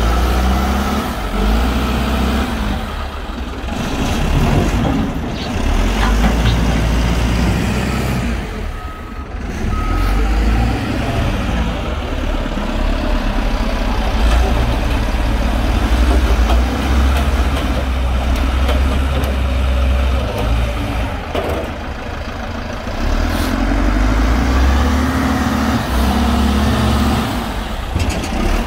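Heavy diesel wheel-loader engines running under load, their pitch rising and falling as the machines work to drag a broken loader whose frozen brakes leave it unable to roll. Two short high beeps come about nine seconds in.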